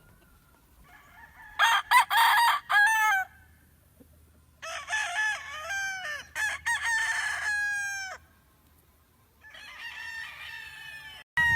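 Gamefowl roosters crowing: three crows in turn, each holding its pitch and then dropping off at the end, the last one fainter.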